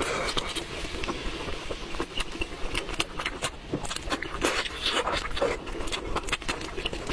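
Eating sounds: irregular chewing and crunching clicks.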